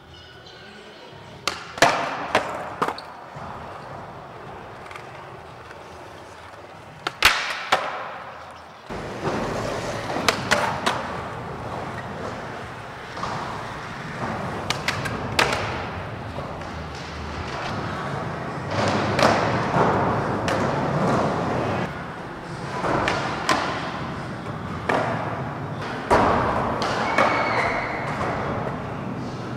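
Skateboards rolling on skatepark ramps, with repeated sharp board slaps and wheel impacts from tricks and landings. A louder continuous rolling noise comes in about nine seconds in.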